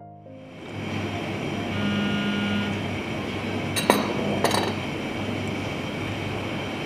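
A steady mechanical rumble with a constant low hum. About four seconds in come two short, sharp clinks a little under a second apart.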